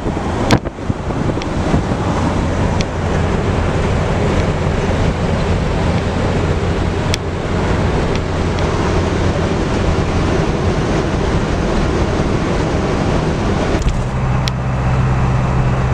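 Road and engine noise inside a moving vehicle at highway speed, with wind on the microphone and a steady low drone. Near the end the drone turns into a steadier, stronger hum, and a few sharp clicks sound along the way.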